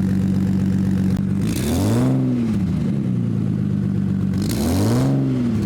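Toyota Soarer (Z20) engine idling steadily, blipped up in revs and back down to idle twice, about three seconds apart.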